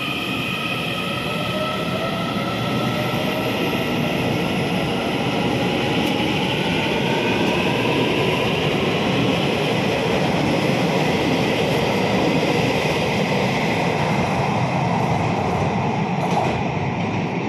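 Electric commuter train accelerating out of an underground station: its traction motors whine and rise in pitch as it pulls away. The wheels make a steady loud rumble on the rails as the cars run past.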